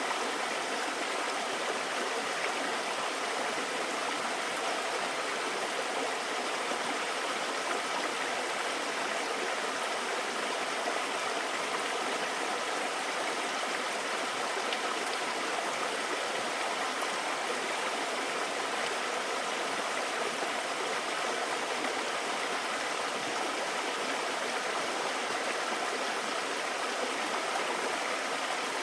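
Mountain valley stream flowing over rocks: a steady, even rush of water.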